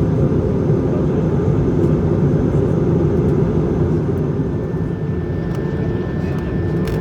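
Steady cabin noise of an Airbus A220-300 airliner: the even rush of its Pratt & Whitney PW1500G geared turbofans and airflow, easing slightly about five seconds in.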